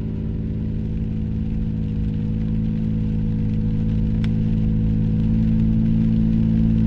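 A vehicle engine running at a steady speed, its drone slowly growing louder, with a faint click about four seconds in.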